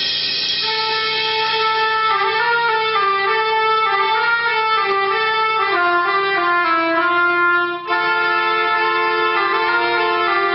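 Instrumental music: a slow melody of long, held notes moving step by step, with a brief dip in level about eight seconds in.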